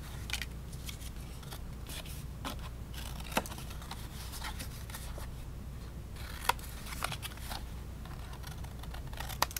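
Small scissors snipping corners off folded paper, several short sharp snips spaced out over a few seconds, with a low steady hum underneath.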